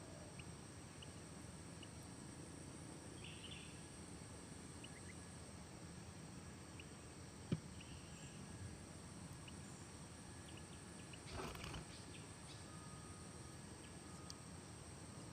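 Faint outdoor ambience with a steady low hiss and a few soft, short chirps. A single sharp click comes about seven and a half seconds in, and a brief rustle about eleven and a half seconds in.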